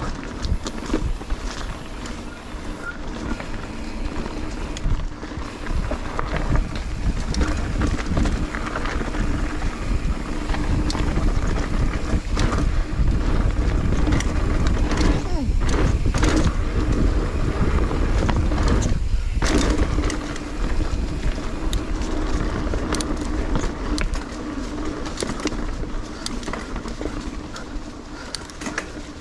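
Mountain bike riding fast down a dirt singletrack: a steady rumble of wind on the microphone and tyres on the trail, with frequent clatter and rattles from the bike over roots and rocks. It is louder through the middle stretch.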